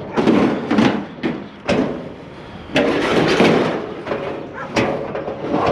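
Scrap metal being shifted into place on a trailer: several sharp knocks and clanks, with a stretch of dragging and scraping in the middle.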